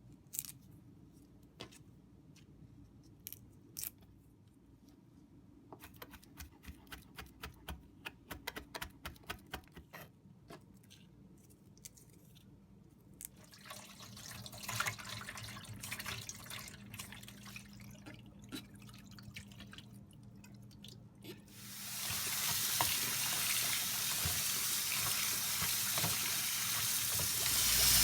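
Light clicks and knocks, including a brief run of regular ticks, then after about twenty seconds a kitchen tap runs steadily into the sink.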